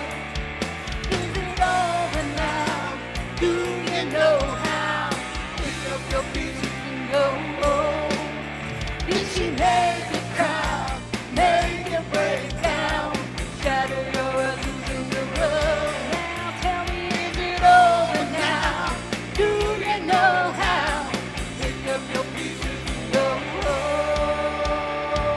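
Live rock band playing a song: singing over electric guitars, bass guitar and drums.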